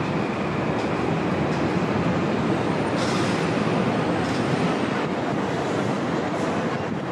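A train running past on nearby tracks: a steady, dense rumble with a faint high whine from about three seconds in.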